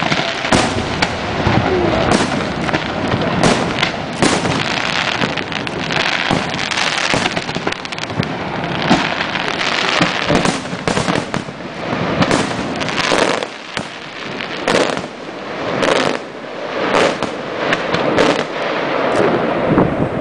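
Fireworks display: sharp shell bangs in quick succession over a continuous crackle, thinning briefly about two-thirds of the way through before the bangs pick up again.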